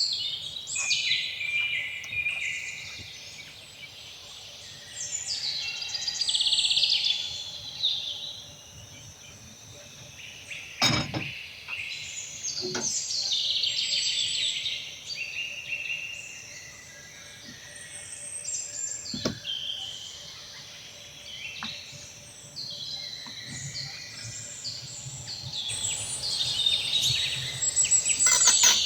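Several birds chirping and singing over one another throughout, with a few sharp knocks about eleven, thirteen and nineteen seconds in.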